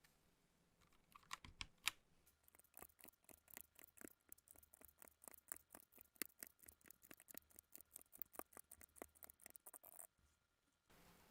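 Typing on a HyperX Alloy Origins Core TKL mechanical keyboard with HyperX Aqua tactile switches. A few louder separate key presses come first, then a quick, even run of key clacks that stops shortly before the end.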